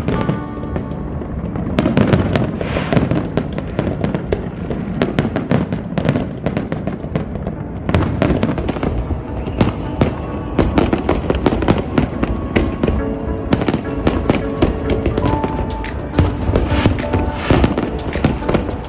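A big fireworks display: rapid, irregular bangs and crackles going off many times a second without a break. Music with held notes plays along underneath and grows clearer near the end.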